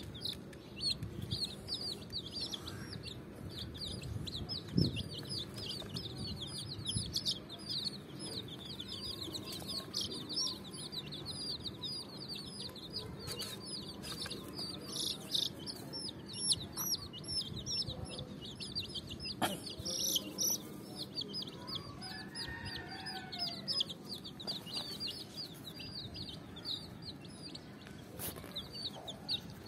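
A group of domestic chicks peeping without a break, many short high falling peeps a second overlapping, with a few soft knocks from handling.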